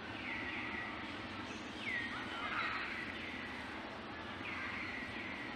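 Background animal calls: a high note that slides down in pitch and then holds, repeated about three times, over steady outdoor background noise.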